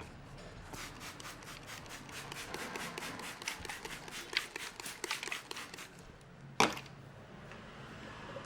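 Massaging hands rubbing quickly and rhythmically through hair and scalp, about five strokes a second, then one sharp crack a little over six and a half seconds in.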